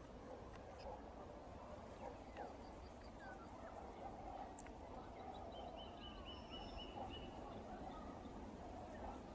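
Faint songbirds calling over steady riverside background noise: scattered short chirps and sliding notes, with a quick run of about eight high notes a little past the middle.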